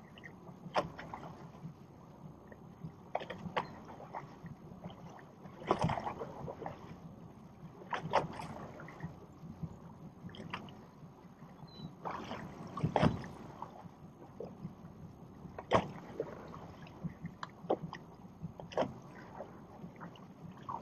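Small waves slapping and knocking irregularly against the hull of a small boat, every second or two, over a faint steady low background.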